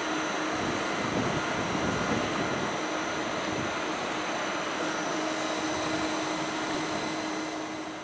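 ICE 3 high-speed train close by, its fans and electrical equipment running with a steady whir, a low hum and faint high whines.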